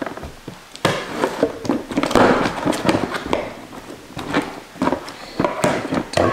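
A cardboard box being cut open with a knife and its flaps pulled apart: an irregular run of scraping, crackling cardboard and sharp snaps.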